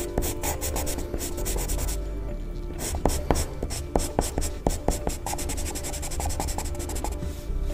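Graphite pencil scratching on paper in quick, short back-and-forth strokes as lines and shading are drawn. There are a few sharper ticks between about three and five seconds in.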